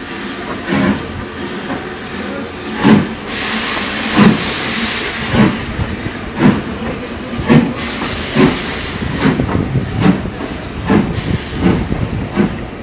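LNER B12 4-6-0 steam locomotive pulling away from a standstill: exhaust chuffs from the chimney come faster, from about one a second to nearly two a second, over a hiss of steam that is loudest around the middle.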